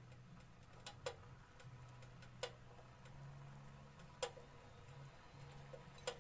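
Near silence: a faint low hum with five short, sharp clicks at uneven intervals.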